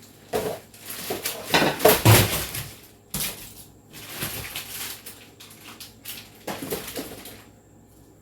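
Food containers and packages being taken out of a refrigerator and set down, with irregular clattering, rustling and knocks, loudest about two seconds in.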